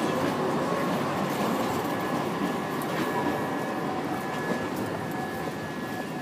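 Tram standing at the platform, running with a steady rumble; a thin, steady high whine comes in about two and a half seconds in.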